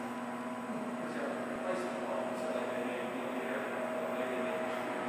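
Steady mechanical hum of a large indoor space: several constant tones over an even background hiss, with no distinct events.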